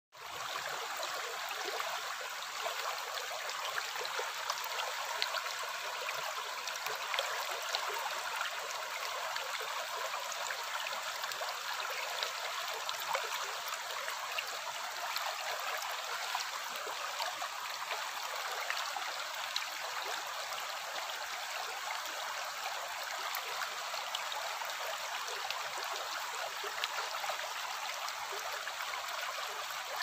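Shallow rocky stream running over stones: a steady rush and babble of water, sprinkled with small splashes and drips. It rises in quickly at the very start.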